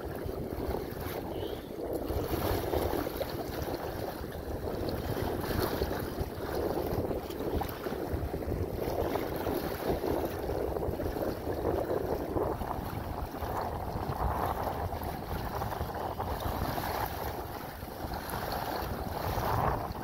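Wind buffeting the microphone over choppy water slapping and splashing against the bow of a plastic fishing kayak under way into a strong wind.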